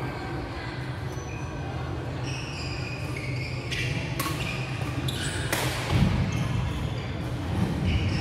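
Badminton play on an indoor wooden court: sharp racket hits on the shuttlecock, several from about four seconds in, the loudest around six seconds, with short shoe squeaks on the floor.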